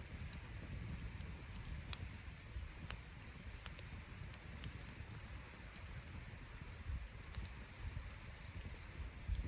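Wood campfire crackling, with sharp pops at irregular intervals over a low steady rumble.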